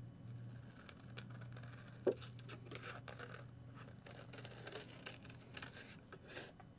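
Scissors cutting fleece fabric: faint, irregular snips and rustles, with one brief louder sound about two seconds in.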